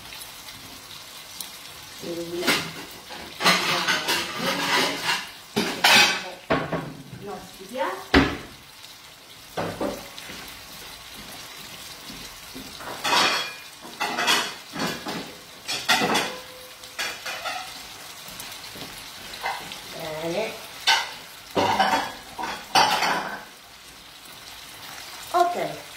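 Sauces sizzling in frying pans on a gas stove, with repeated clatter of spoons, utensils and pans being handled in clusters of sharp knocks.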